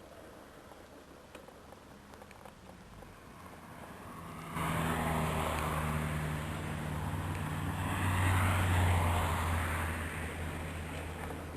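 A road vehicle's engine hum and tyre noise come in abruptly about four and a half seconds in. They are loudest a few seconds later, then fade.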